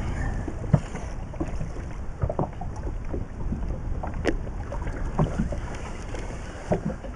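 Wind buffeting the microphone and water moving around a small inflatable boat, with scattered light clicks and knocks from the rod and reel as a fish is wound up from deep water.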